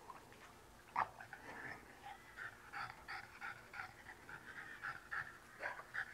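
French bulldog panting in quick short breaths, about three a second. A brief, sharper sound comes about a second in.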